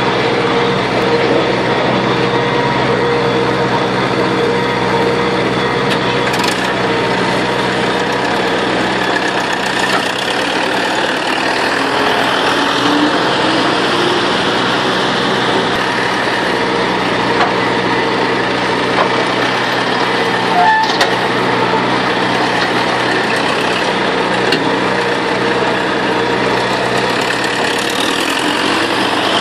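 Tractor engine running steadily, driving a Falke vertical feed mixer wagon whose auger churns hay and feed in the tub. There is a light click or knock here and there.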